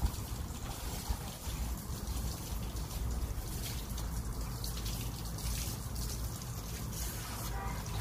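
Water from a garden hose trickling and splashing steadily onto a dog's coat and the tiles, over a steady low rumble.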